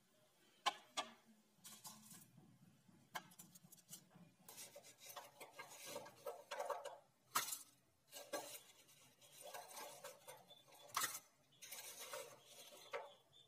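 Faint tableware handling: light clinks and knocks as a bowl and a sauce dish are set on a ceramic plate. Between them come patches of rustling as the aluminium-foil lining is handled and fried chicken pieces are placed in the bowl.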